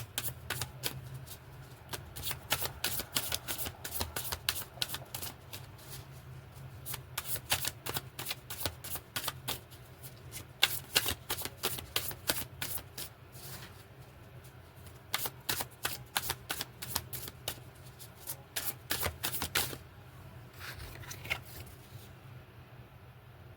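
A tarot deck being shuffled by hand: several runs of rapid card-flicking clicks broken by short pauses, stopping a few seconds before the end.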